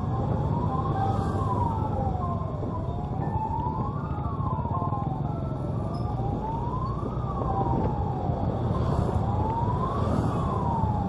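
A siren wailing slowly, its pitch rising and falling about once every three seconds, over the steady rumble of motorcycle engines and wind.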